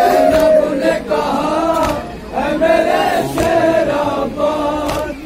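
Group of men chanting a noha, an Urdu lament for Karbala, together through a microphone and loudspeakers, a sad sung melody in several voices.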